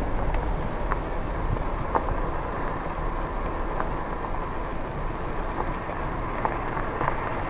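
Wind buffeting the camera microphone: a steady low rumbling noise, with a few faint scattered clicks.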